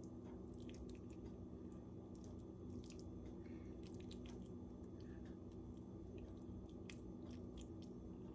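Faint wet squishing and small clicks of a spoon pushing shredded vegetable stuffing into a pocket in a raw chicken breast, over a steady low hum.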